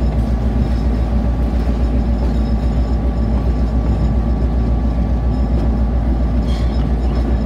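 Diesel locomotive engine running under way, heard close by from on board: a loud, deep rumble with a fast, even pulse, over the noise of the moving train.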